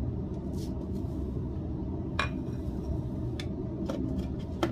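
A few light clicks and knocks from a plate and a plastic bread-crumb canister being handled, the clearest about two seconds in and another near the end as the canister's lid is pressed on, over a steady low hum.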